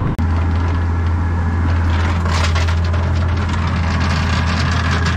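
Yamaha outboard motor running steadily with a low drone while the boat tows a shrimp trawl net, with rushing wind and water noise over it.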